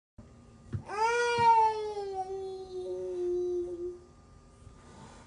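A silver tabby cat giving one long, drawn-out meow of about three seconds that starts about a second in, its pitch sliding slowly down.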